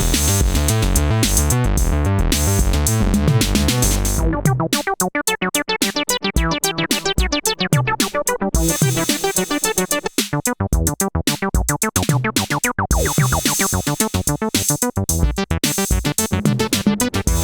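Synthesizer bass line playing a sequenced pattern with a drum-machine-like beat. About four seconds in, the sound switches from a thick, sustained bass to short, rapid staccato notes.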